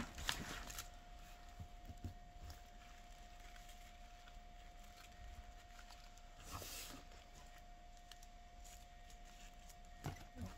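Faint rustling and crinkling of fir and holly sprigs as they are handled and wired onto a moss wreath ring, with a louder rustle about six and a half seconds in and a few clicks near the end. A faint steady high hum runs underneath.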